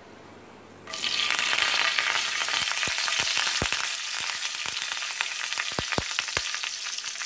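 Mustard seeds and curry leaves in hot oil in a kadai: a loud sizzle starts suddenly about a second in, and sharp pops of spluttering mustard seeds crackle through it as the tempering cooks.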